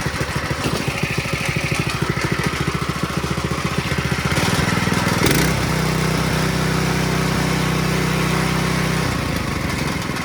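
Predator 212, a single-cylinder four-stroke small engine, running just after being pull-started, with a fast steady run of firing pulses. About four seconds in it picks up speed into a smoother, steadier hum, then eases back down about nine seconds in.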